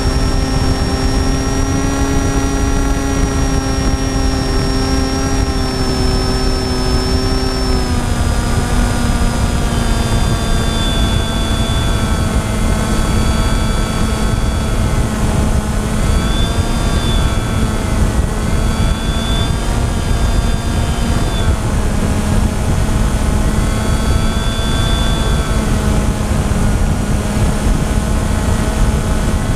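FPV quadcopter's electric motors and propellers whining steadily in flight, the pitch dropping a little about eight seconds in and wavering slightly later, over a heavy rushing of air.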